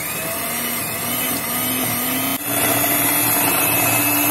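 Kenwood electric hand mixer running, its beaters whipping cream in a glass bowl. The motor hum creeps slightly higher in pitch, then steps louder and a little higher about halfway through.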